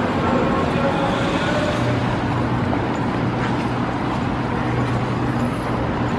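Steady road-traffic noise with a low engine hum.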